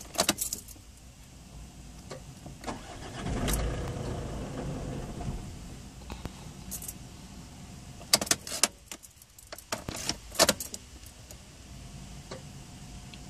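Key rattles and sharp clicks from the ignition, with the Mazda 3's 2.0 RF diesel engine turning over about three and a half seconds in for a couple of seconds, then a lower steady sound. More clicks come about 8 and 10 seconds in. The hard starting comes from a blocked fuel filter.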